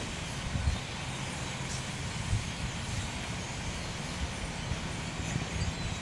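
Steady low outdoor rumble with a faint hiss above it, the kind of background made by wind on the microphone and far-off traffic; no distinct bird calls stand out.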